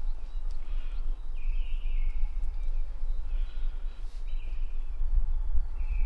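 Wind buffeting the microphone as a low, uneven rumble, with a bird giving several short calls of under a second each in the background.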